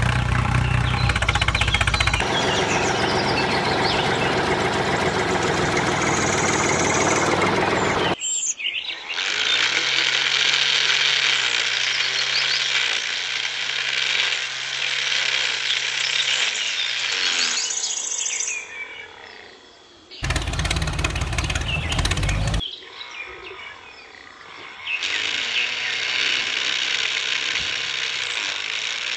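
A small electric motor whirring steadily as it spins a miniature circular saw blade against plant stems. The whirr drops away twice in the later part and starts again.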